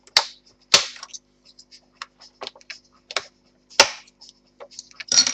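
Plastic snapping and clicking as a laptop's plastic hinge covers are pried off, with sharp cracks about a second in, near four seconds in and at the end, and lighter ticks between.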